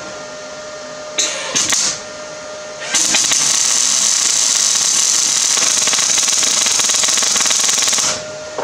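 MIG welding arc on steel: two short bursts of crackle about a second in, then a continuous bead of steady, sizzling crackle for about five seconds that cuts off suddenly near the end.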